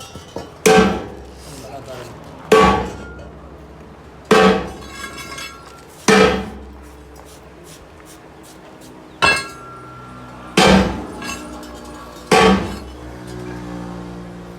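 Heavy hammer blows on metal, seven strikes about two seconds apart with a pause of about three seconds in the middle, each followed by a short metallic ring.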